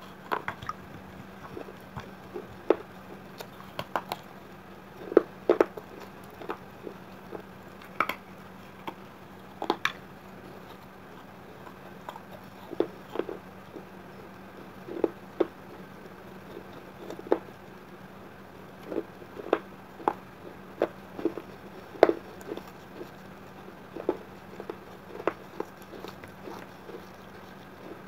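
A person chewing pieces of baked clay: irregular sharp crunches, sometimes several in quick succession, with short quiet pauses between bites.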